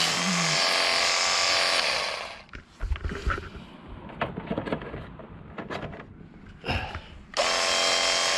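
Jet Hawk cordless pressure washer's motor and pump running steadily, cutting off about two seconds in. A few seconds of knocks and clatter follow, then the pressure washer starts up again near the end.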